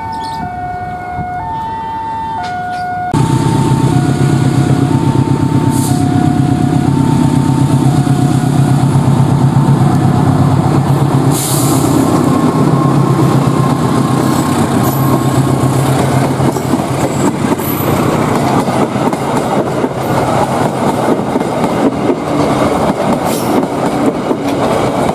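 A two-tone warning alarm chimes in alternating high and low notes, a level-crossing alarm. About three seconds in, a GE CC206 diesel-electric locomotive comes past close by with its engine running loudly. It is followed by the steady rolling and clatter of the passenger carriages' wheels on the rails.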